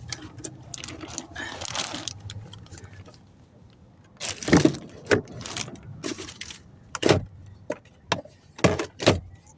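Objects being handled and knocked about: a low rustle of handling, then about five sharp knocks and clatters spread over the last five seconds.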